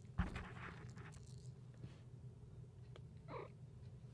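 A cat playing inside a cat play tunnel: a sharp thump of her pounce, then rustling as she moves about in it.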